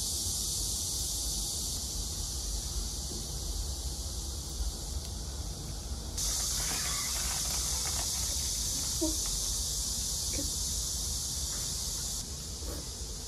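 Steady high-pitched chorus of insects droning, louder from about six seconds in until near the end, with a few faint clinks of a knife and fork on a plate.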